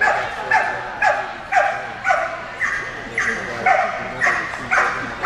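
Dog barking over and over on an agility pause table, about two barks a second in an even rhythm.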